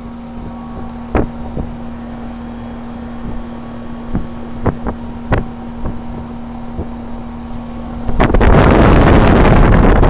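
1988 Heil heat pump outdoor unit running in cooling mode, fairly quiet: a steady hum with a few light ticks. About eight seconds in, a loud rush of air takes over as the condenser fan's exhaust blows across the microphone.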